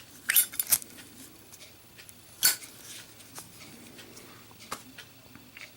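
A Zippo lighter being worked in the hand: a few sharp metallic clicks of the lid and case, a quick pair near the start and the loudest about two and a half seconds in.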